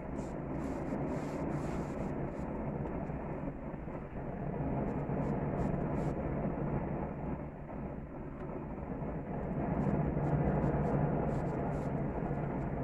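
Gas grill burners running under a searing tri-tip: a steady rushing noise that swells a little a few times, with scattered faint crackles from the meat.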